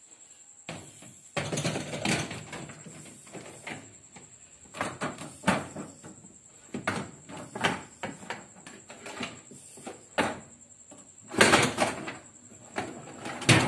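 The AmazonBasics dishwasher's lower wire dish rack being lifted and slid back into the tub, rattling and clunking on its rails. There are repeated bursts of metal clatter, the loudest about one and a half seconds in and again near the end.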